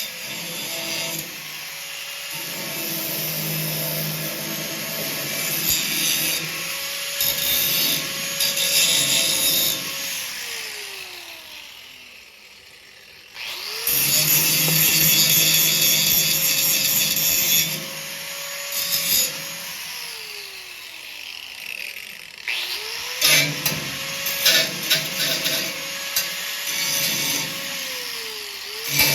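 Handheld electric grinder running against the snowmobile's thin, rusted steel frame, with a high hiss of abrasive on metal while it cuts. Its motor holds a steady whine and then winds down three times, starting up again sharply twice in between.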